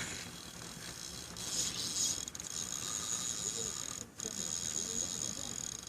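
Fishing reel ratcheting steadily as a big grouper is fought on the line, starting about a second and a half in.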